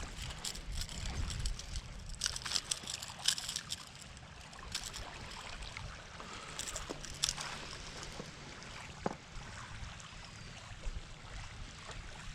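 Irregular splashing and sloshing of shallow water as a hooked bluefish is drawn in to the shore, with a steady low rumble of wind on the microphone.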